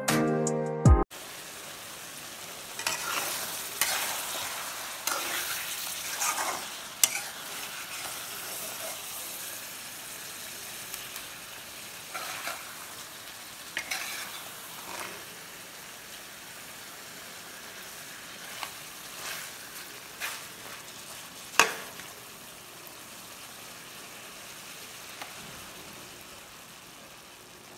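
Thick mutton curry sizzling in a metal kadai as a spatula stirs it, scraping and knocking against the pan at irregular intervals, with one louder knock past the middle. Background music ends about a second in.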